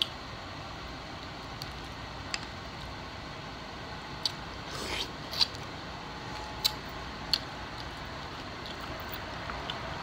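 Eating mussels close to the microphone: about seven sharp clicks of mussel shells being handled and pried open, with a short wet chewing or sucking sound about five seconds in.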